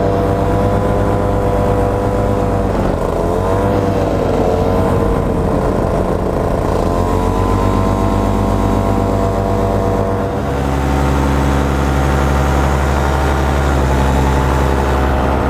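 Black Hawk 125 paramotor's two-stroke engine and propeller running steadily in flight, its pitch dipping briefly and coming back a few seconds in. A heavier low rumble joins about two-thirds of the way through.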